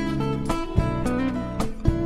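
Music: an instrumental break in a song, with acoustic guitar strumming chords that change about every half second.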